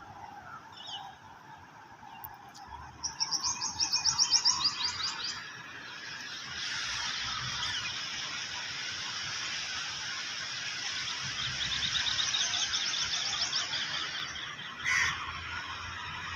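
A bird calling in two fast runs of repeated high chirps, over a steady hiss, with a short burst near the end.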